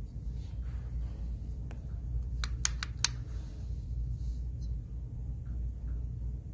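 Steady low room hum, with a quick run of sharp clicks a little over two seconds in.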